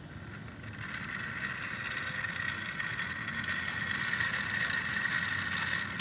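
Toy model locomotive running toward the level crossing, a steady rushing noise that grows louder from about a second in as it comes closer.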